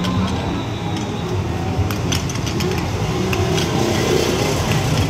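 Busy street background: traffic running steadily and indistinct voices, with a few light clicks and clinks.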